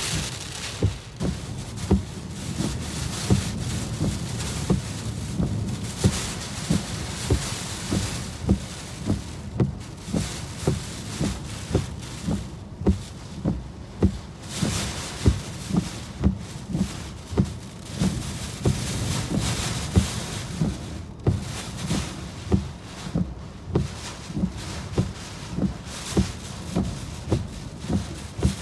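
Wind-driven heavy rain hissing on a parked car, swelling and easing with the gusts, over a run of dull low thuds about two a second.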